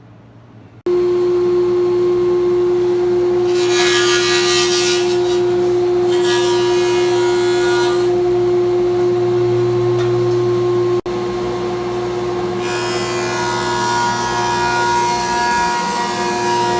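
Electric wood planer starting up suddenly and running with a steady whine as rough-sawn oak boards are fed through it. Three times the rough cutting noise swells over the motor as a board is planed.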